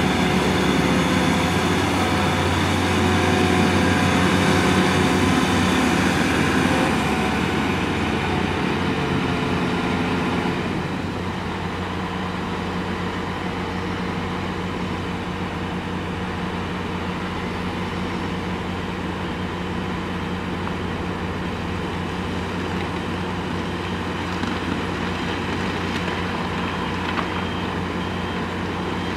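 Hitachi ZX690LCH-6 hydraulic excavator working under load: its diesel engine drones steadily along with hydraulic noise. It is louder and busier for about the first ten seconds, then settles to a lower, steady drone.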